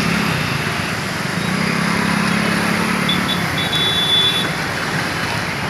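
Road traffic on a wet street: a steady hiss of tyres and rain with vehicle engines passing, one engine's hum swelling through the middle. A thin high-pitched beep sounds briefly about three seconds in, then holds for about a second.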